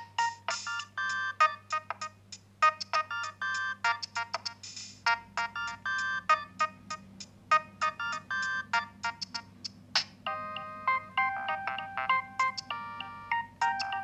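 Nokia 3100 mobile phone playing its built-in polyphonic ringtones through its small loudspeaker: a rhythmic tune of short notes with sharp percussive hits, changing about ten seconds in to a different pattern of longer, held notes.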